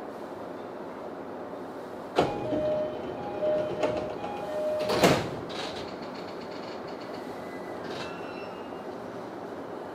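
Commuter train door-closing chime, a two-note tone repeated several times over about three seconds, ending in a loud thump as the sliding doors shut. Door closing while the train stands at a station before departure.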